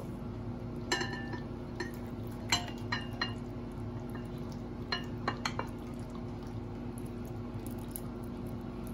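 A frying pan and spatula clinking and scraping against a ceramic serving bowl as a thick stew is scooped out: a few short ringing clinks about a second in, a cluster of three around two and a half to three seconds, and another few around five seconds, over a steady low hum.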